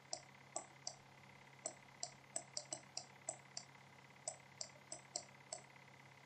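Faint, irregular light clicks, some seventeen in six seconds, made as handwriting strokes are put down on a digital whiteboard, over a faint steady hum.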